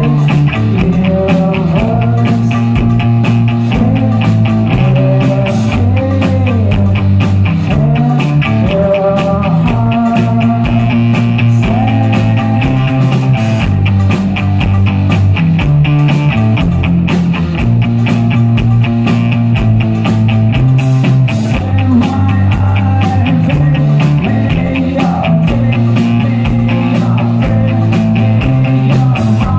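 Rock band playing live, with electric guitar and drum kit under a melody line, loud and continuous.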